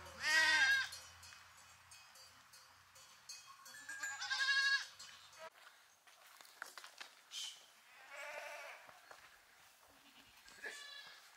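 Bleating from a mixed flock of goats and sheep: four separate calls, the first and loudest right at the start, the rest spread out over the following seconds.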